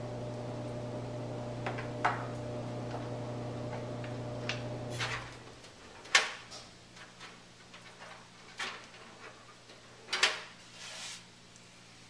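Scattered clicks and knocks of computer parts being handled and fitted, the sharpest about six and ten seconds in. A steady electrical hum runs under them and fades out about halfway through.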